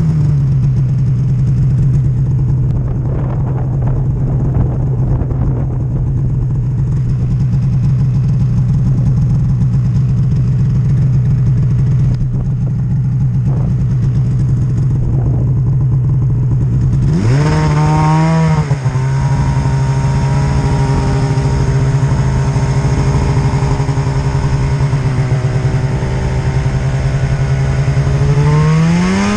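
Snowmobile engine running under load while riding through deep snow, holding a steady pitch. About two-thirds of the way through the revs climb briefly, then settle into a steady, slightly higher and brighter note, and they rise again at the very end.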